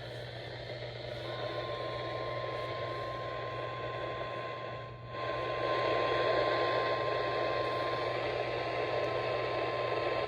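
NOAA Weather Radio 1050 Hz warning alarm tone, a single steady pitch that starts about a second in and holds for about nine seconds, signalling that a warning broadcast follows. It sounds through radio static hiss with a steady low hum.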